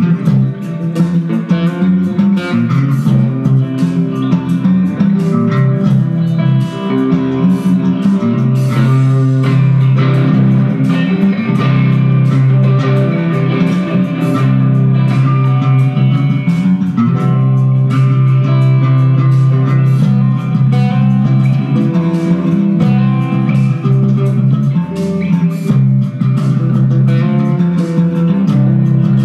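Improvised instrumental jam on electric guitar over sustained electric bass notes.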